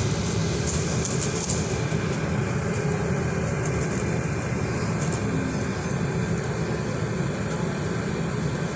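Stagecoach bus running along a town street, heard from inside the passenger saloon: a steady low engine and road rumble, with a few faint clicks or rattles about a second in.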